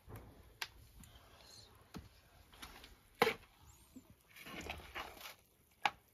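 Metal serving spoon scraping and knocking against a metal frying pan as fried chicken pieces are dished onto a plate. There are several sharp clinks, the loudest about three seconds in, and a short stretch of scraping shortly before the end.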